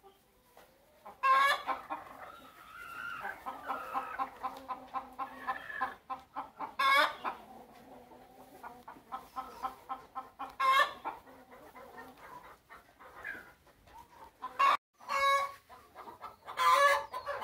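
Domestic hens clucking and cackling: runs of quick, rapid clucks broken every few seconds by a loud drawn-out call.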